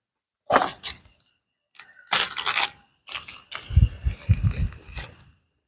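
A small plastic seasoning packet crinkling and rustling as it is handled, in several irregular bursts, the longest about three seconds in, with a few low bumps.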